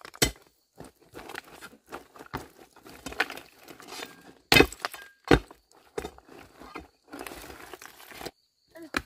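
Flat layered stone slabs clinking, knocking and cracking against each other as they are worked loose and shifted. The sharpest knocks come just after the start and twice around five seconds in, and a stretch of gritty scraping of stone follows near the end.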